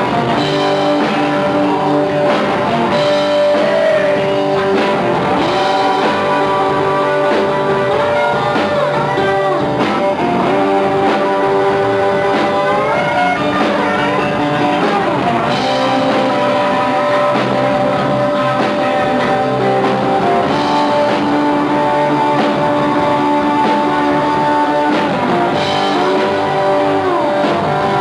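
Live rock band playing loud and steady: distorted electric guitars over a drum kit.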